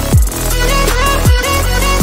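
Electronic background music, with a deep kick drum that drops in pitch, hitting about once a second under sustained synth notes.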